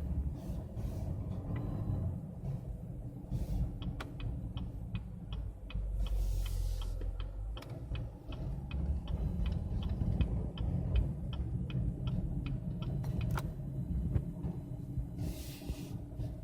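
Steering clicking as the wheel returns to centre: a long run of short, light clicks, at times several a second, over the low rumble of the idling engine. The clicking/popping on return to centre is the steering fault being shown.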